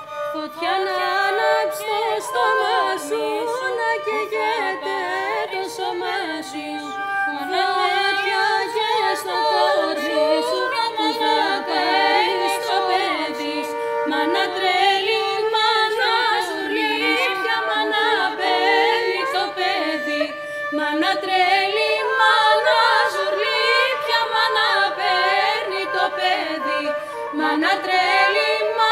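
Traditional Greek folk song performed live: women's voices singing an ornamented, wavering melody over a steady held drone note.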